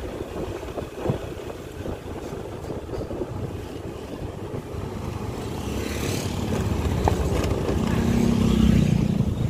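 Motorcycle running along a wet road, its engine and tyre noise mixed with wind on the microphone. The sound builds over the last few seconds, loudest near the end as oncoming traffic goes by.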